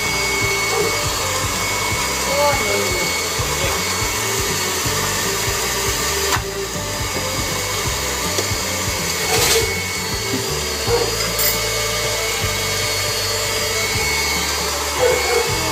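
An electric fan running with a steady whir, with a couple of short knocks about six and nine seconds in.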